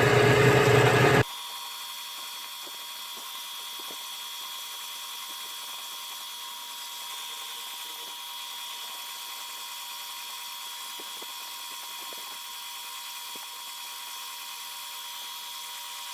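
Small tabletop milling machine running steadily while the work is centred. It is loud for about the first second, then drops suddenly to a faint, thin steady whine with a few light ticks.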